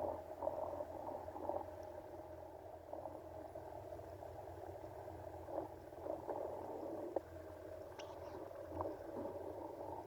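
Jet ski running steadily, heard muffled: a low hum under a wavering midrange rush, with a faint click about eight seconds in.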